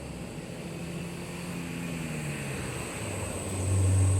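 Heavy road vehicle's engine drawing near. Its low note rises a little in pitch through the middle, then grows loud and deep near the end as it comes close.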